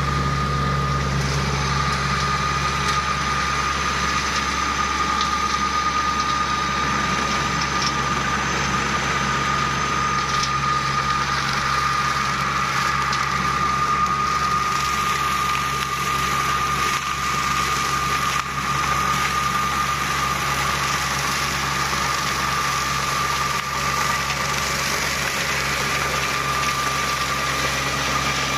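Small engine of a homemade flail mower, built on a tracked snowblower, running steadily, with a thin steady high whine above the engine note.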